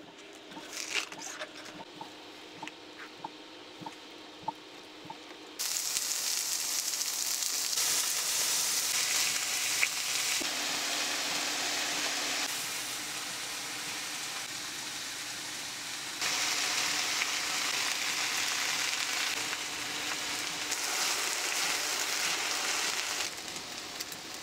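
Knife slicing an onion on a cutting board, a series of light taps. About five and a half seconds in, a steady sizzle starts as cabbage and then udon noodles fry in a frying pan, stirred with chopsticks, and its level jumps a few times.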